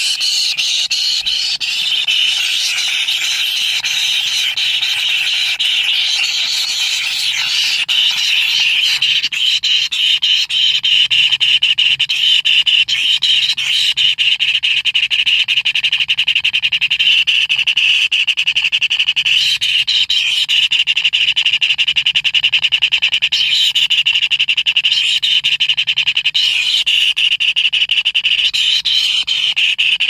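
Kingfisher nestlings begging for food, a loud, continuous rasping buzz made of very rapid pulses that never lets up.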